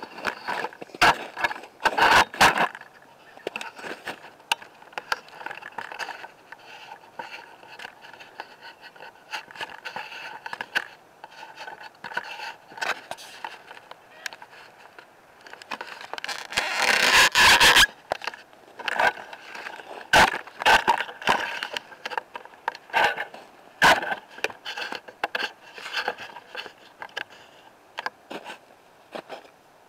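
Crunching and scraping of footsteps through snow and dry leaves, with scattered clicks and knocks from handling a plastic sap bucket, and one louder rustling stretch about 17 seconds in.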